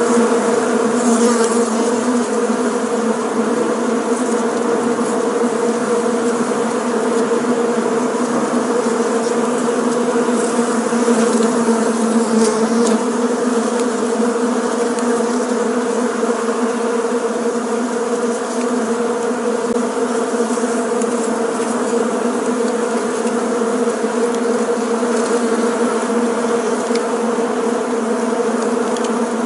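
Bees buzzing as a dense swarm: a steady, unbroken low hum with no pauses.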